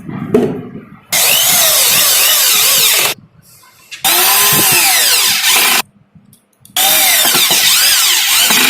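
A power drill driving screws in three bursts of about two seconds each, its whine rising and falling in pitch within each burst. It is tightening the screws that fix a cylinder lock in a drawer.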